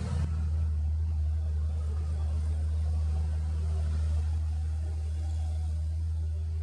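Low, steady drone of a large ship's diesel engines.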